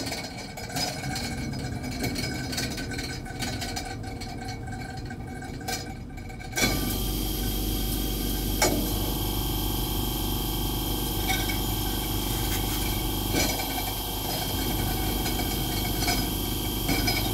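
Hot-meal vending machine's internal lift mechanism running as it fetches a boxed meal: motors whirring, with a louder steady hum that sets in about six and a half seconds in and a few sharp clicks.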